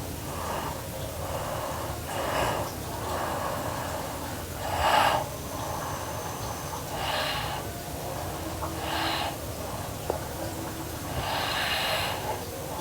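A sleeping girl snoring: a row of noisy breaths, irregular, one every second or two, the loudest about five seconds in.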